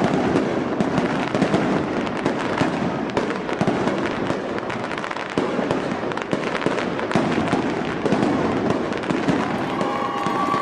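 Fireworks going off, many sharp pops and crackles overlapping in a steady, continuous din.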